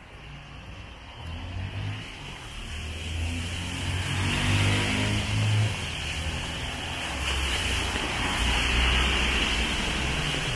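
Traffic on a rain-soaked street: tyres hissing through water on the wet road over the low drone of vehicle engines, growing louder over the first few seconds and then staying loud.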